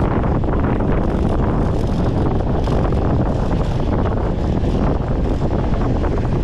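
Heavy wind noise buffeting a microphone: a steady, dense rush concentrated in the low range, with no let-up.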